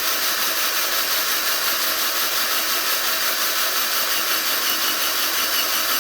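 Electric drill running steadily under load, its bit boring into an emissions port of a cast-iron Mopar 360 cylinder head.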